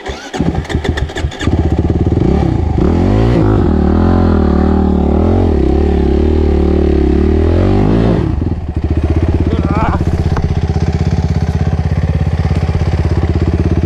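Suzuki RMX450Z dirt bike's single-cylinder four-stroke engine firing unevenly for the first second or so. It then revs hard, its pitch rising and falling under load on a steep rocky climb, and about eight seconds in drops to a steady, evenly pulsing idle.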